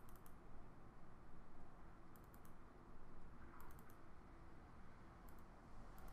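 Computer mouse clicking faintly in four quick groups of double-clicks, spaced a second or two apart, over low room noise.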